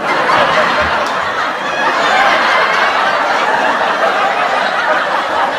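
Sitcom studio audience laughing together, a dense, steady crowd laugh.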